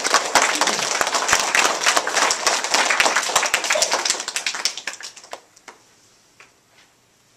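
A small audience of children applauding, many hands clapping for about five seconds, then thinning out to a few last claps and stopping.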